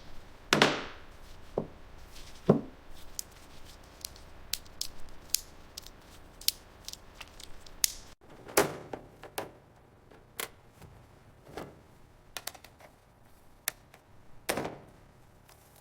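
Irregular clicks and taps of hand tools working on metal, with a few heavier knocks and clunks scattered through; the sound jumps abruptly about eight seconds in.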